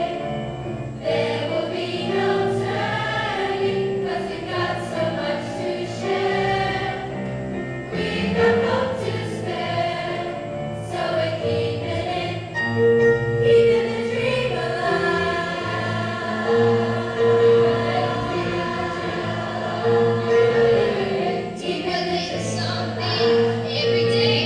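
A large school choir of girls and boys singing a song together in parts, with long held notes.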